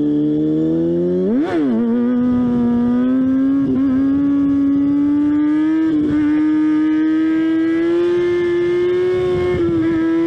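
Motorcycle engine running at high revs, with a quick rev flare about a second and a half in, then the pitch climbing slowly and steadily as it pulls.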